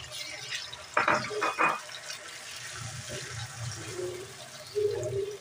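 Chopped tomatoes sizzling in hot oil in a karahi, a steady hiss. About a second in come a few sharp scrapes or knocks, the spatula against the pan.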